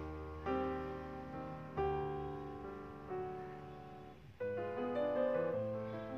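Background piano music: a slow run of chords, each struck and then left to fade, with a new one about every second and a half.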